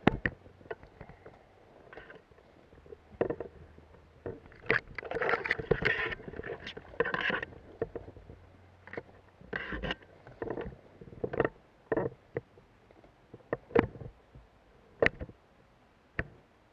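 Undergrowth and branches brushing and scraping against a person pushing through dense bushes, with irregular sharp cracks of twigs and footfalls; the rustling is heaviest about five to seven seconds in, then thins to scattered snaps.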